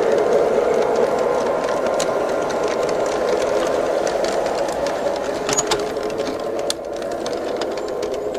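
G scale model train cars rolling past on garden railroad track: a steady rumbling whir of wheels on the rails with occasional sharp clicks, a little quieter from about two-thirds through.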